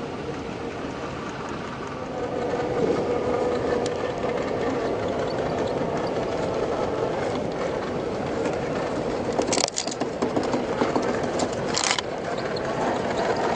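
Traxxas TRX4 RC crawler's electric motor and geared drivetrain whining steadily as the truck crawls over rock, getting louder about two seconds in. Two brief harsh high-pitched noises come near the end.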